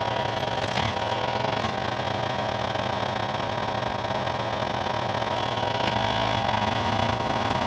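A vehicle's engine runs steadily while it drives along a loose gravel track, with the noise of tyres rolling over the stones.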